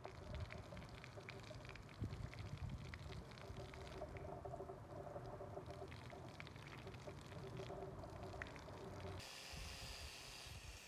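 A thin stream of water pouring and splashing over a small steel knife blade held in metal tongs, spattering onto a hard stone floor. Near the end the sound turns into a steadier hiss.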